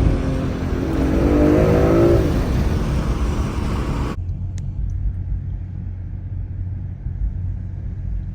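BMW M340i engine revving under acceleration, its pitch climbing and dropping, over heavy road noise. About four seconds in the sound cuts off abruptly to a quieter, steady low rumble.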